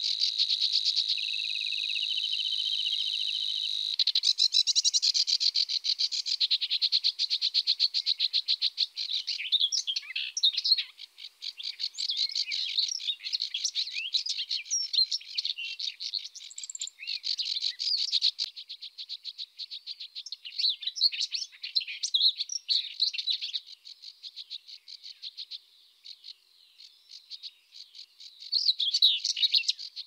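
A dense chorus of small birds chirping and trilling, high-pitched, with rapid pulsed trills throughout. It thins for a few seconds and then picks up again near the end.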